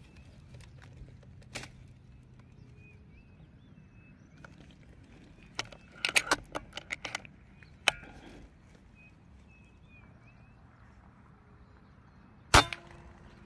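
A single sharp shot from a 5.5 mm PCP air rifle near the end, the loudest sound, followed by a short ringing. About halfway through there is a quick run of sharp clicks and knocks, and faint bird chirps sound in the background.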